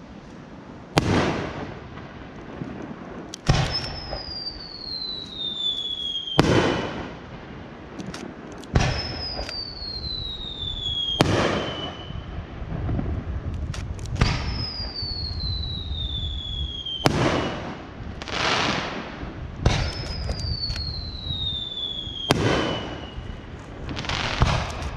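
Aerial firework shells launched and bursting one after another, a sharp report about every two and a half to three seconds, each followed by a rolling echo. Four times a whistle falls in pitch over about two seconds between reports.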